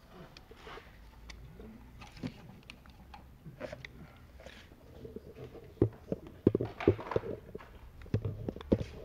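Hand work on rubber and plastic parts in a car engine bay: scattered clicks, knocks and rubbing, growing busier and louder with a run of sharper knocks from about six seconds in.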